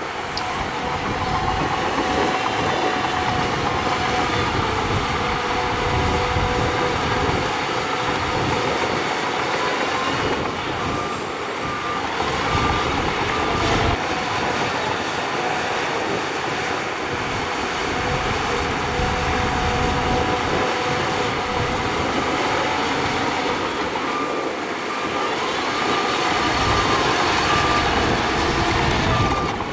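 Shantui crawler bulldozer at work: its diesel engine runs steadily under load, with the metallic clatter of its steel tracks. A reversing alarm beeps in a regular pattern near the end.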